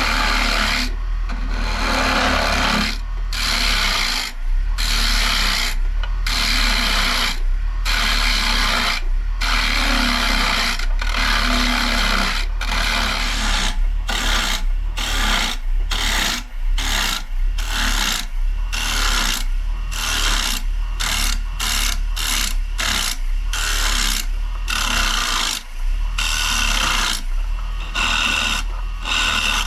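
Rikon carbide turning tool cutting a spinning maple bowl on a Rockler 10x18 lathe: a rough scraping hiss in repeated passes, breaking off briefly every second or so, over the lathe motor's steady low hum.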